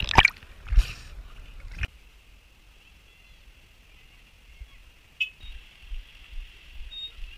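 Water splashing and sloshing around a swimmer's camera, with a few loud churning splashes, ending in a sharp knock about two seconds in. Then a quiet bicycle ride on a paved road, with a faint steady hiss, a click and soft low bumps.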